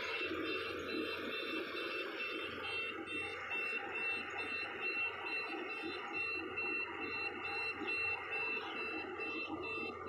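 Yanmar AG600A rice combine harvester running steadily, with a high electronic beeping repeating about twice a second over the machine noise.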